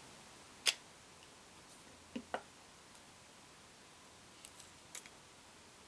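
A few small, sharp clicks from a baitcasting reel as its side plate is released and the spool taken out: one under a second in, a quick pair around two seconds, and a couple of lighter ticks near the end.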